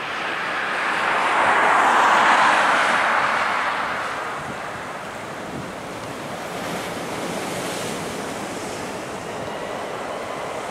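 Airbus A320's IAE V2500 jet engines idling with a faint steady whine, under a rush of wind and surf noise that swells about two seconds in and then fades.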